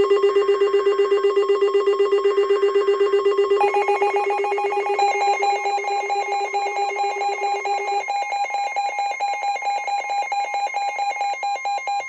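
Emergency alert tones for a special marine warning: a loud, rapidly pulsing alarm of about ten beeps a second, whose pitches change about three and a half seconds in and again about eight seconds in, sounding over a steady single-pitch warning tone.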